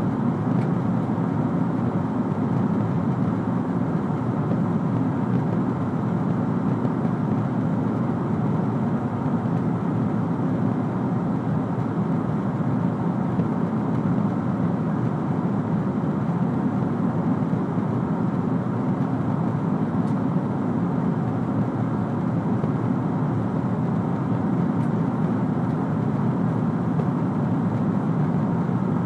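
Steady in-flight cabin noise of a Boeing 777-300ER, heard from a window seat: an even rush of airflow and the drone of its GE90 engines, deep and unchanging.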